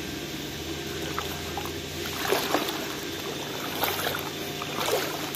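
Pond water sloshing and splashing as a man wades waist-deep and sweeps electrofishing poles through it, with a few sharper splashes from about two seconds in, over a low steady hum.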